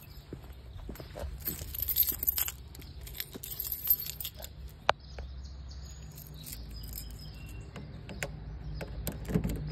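Car keys jangling on their ring in two bursts, then a sharp click and smaller clicks as the key is worked at the car's door lock.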